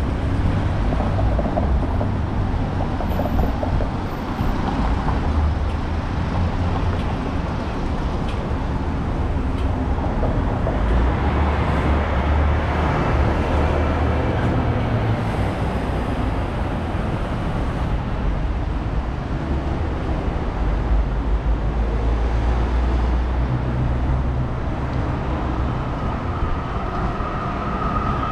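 A vehicle in motion: a continuous loud rumble and running noise, with a steady whine coming in near the end.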